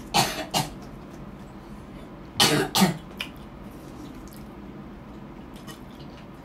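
A woman giving two short throat-clearing coughs, one right at the start and another about two and a half seconds in, each a quick double burst.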